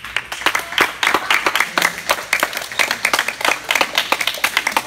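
A small crowd of spectators clapping and applauding at the end of a table tennis point, with many quick claps overlapping.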